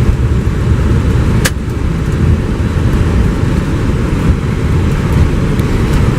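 Steady low rumble of an Airbus A320 on the ground after landing, heard from the cockpit, with one sharp click about a second and a half in.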